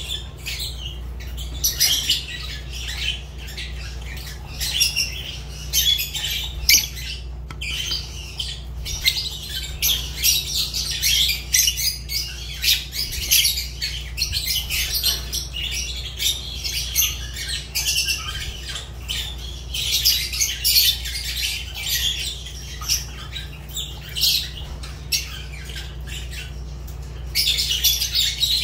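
Fischer's lovebirds chattering and squawking without a break, in shrill, high-pitched, rapid chirps and screeches.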